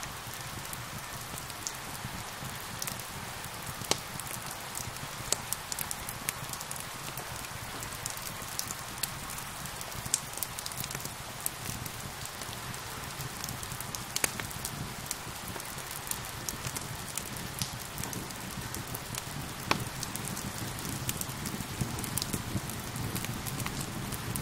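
Steady rain falling, with a wood fire crackling over it in scattered sharp pops; a few louder pops stand out, around 4, 14 and 20 seconds in.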